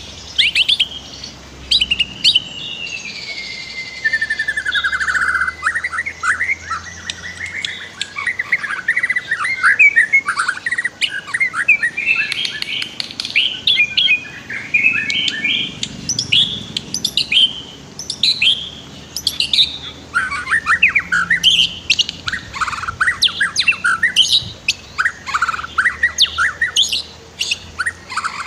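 White-rumped shama (murai batu) singing a long, unbroken, varied song of rapid whistled phrases, trills and sweeping notes, with a long gliding whistle a few seconds in.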